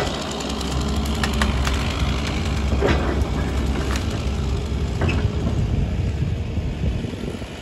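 Komatsu excavator's diesel engine running as a steady low drone, with a few sharp clicks or snaps over it.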